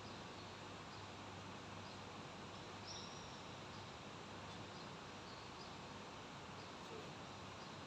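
Quiet, steady hiss of a large, still prayer hall, with a few faint short high chirps, the clearest about three seconds in.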